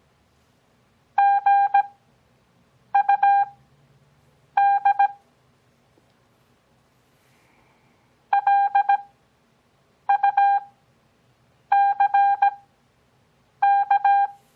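Morse code practice tone sent at a 17 WPM character speed with Farnsworth spacing (6 WPM overall): seven characters of keyed dots and dashes on one steady beep, three with wide gaps between them, a longer word-space pause, then four more.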